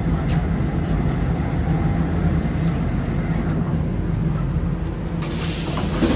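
Lisbon Metro train running with a steady low rumble as it slows into the station, then a short burst of air hiss about five seconds in as it comes to a stop.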